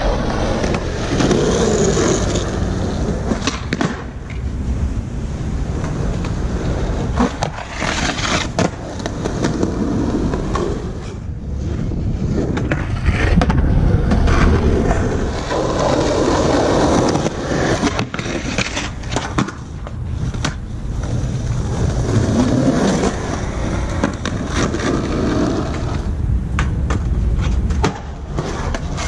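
Skateboard wheels rolling over concrete and asphalt in a continuous rumble, broken several times by sharp clacks of the board striking the ground.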